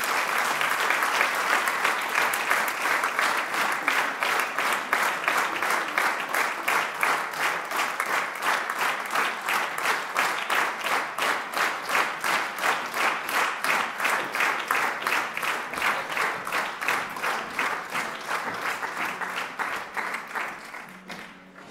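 Audience applauding in a large hall, the clapping in a steady, even rhythm, fading out near the end.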